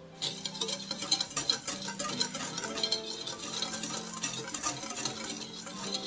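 Stainless wire balloon whisk stirring dry granulated sugar and matcha powder in a glass bowl: rapid clicking and scraping of the tines against the glass, starting a moment in.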